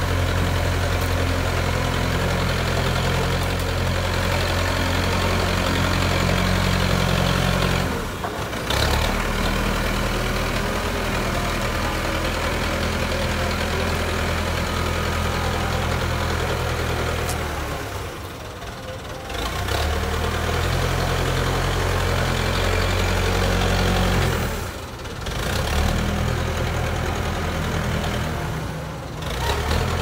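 Diesel engine of a JCB 3CX backhoe loader running steadily as it pushes soil with its front bucket, with short sudden drops in the sound about four times.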